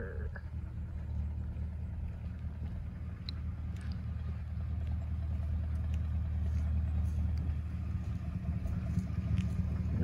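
BMW E39 540i's 4.4-litre V8 with hollowed-out catalytic converters, its exhaust giving a steady low drone that grows gradually louder.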